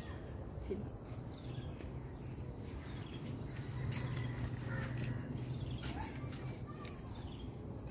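Outdoor ambience dominated by a steady, high-pitched insect drone, with a low hum underneath and a few faint chirps.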